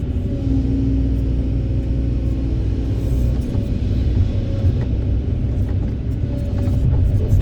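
Heavy diesel engines of an excavator loading a dump truck, running as a steady low drone with some faint clicks.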